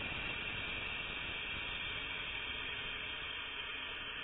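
Steady, even hiss with no other clear sound, strongest in its upper range.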